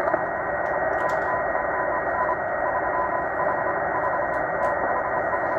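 Morse code from the M12 numbers station heard through a Tecsun H-501x shortwave receiver in single-sideband (USB) mode: a steady-pitched beep keyed on and off in dots and dashes over constant shortwave static and hiss.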